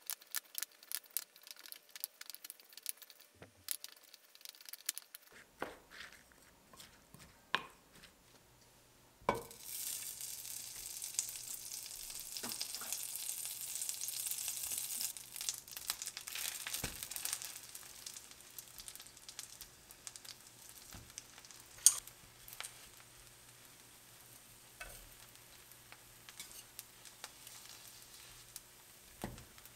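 A wooden spoon clicks and scrapes in a glass bowl as egg and shredded cabbage are mixed. About nine seconds in, butter starts sizzling in a hot skillet, loudest for the first several seconds and then settling to a quieter fizz, with one sharp knock about two-thirds of the way through.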